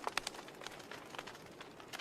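Burning logs in a fireplace crackling: irregular sharp pops and snaps over a soft hiss, with a few stronger pops right at the start.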